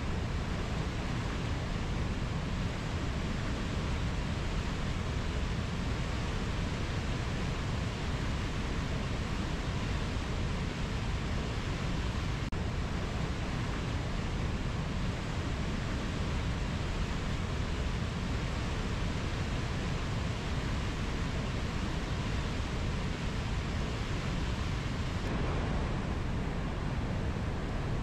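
Mountain river flowing over low rapids: a steady rushing of water.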